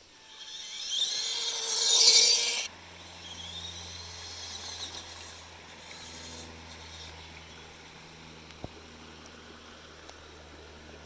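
The WPL C-14 RC crawler's small brushed 130-size Nerf gun motor and gearbox revving up in a rising whine that cuts off suddenly about two and a half seconds in, followed by two shorter, weaker whining bursts.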